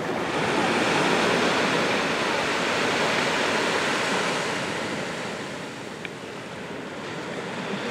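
Small waves breaking and washing onto a sandy beach: a steady rush of surf that swells, eases for a moment around the middle, then builds again.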